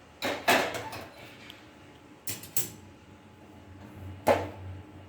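Kitchen utensils being handled: a cluster of clinks and knocks just after the start, two more about halfway, and one sharp knock near the end, like pots and cups being moved and set down.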